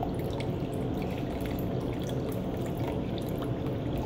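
Water poured in a thin stream from a glass flask into a plastic 2-liter soda bottle, trickling and splashing in many small, irregular drops, over a steady low room hum. The pour is topping the bottle up to a centimeter mark.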